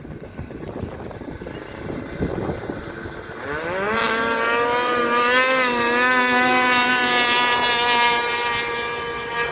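Wind on the microphone, then about three and a half seconds in a racing engine revs up and runs at high revs, its pitch wavering slightly as it holds.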